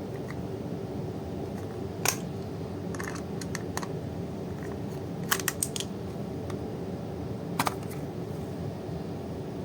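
Sharp clicks and taps of a plastic charger case and tools being handled during a teardown: a single click about two seconds in, a few light ones soon after, a quick run of three or four a little past halfway, and a double click near the end, over a steady low hum.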